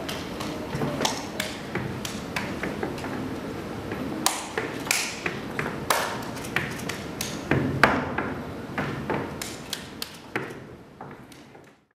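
Body percussion and percussive step dancing: sharp claps, slaps and shoe taps and stomps on a stage floor in a quick, irregular rhythm, fading out near the end.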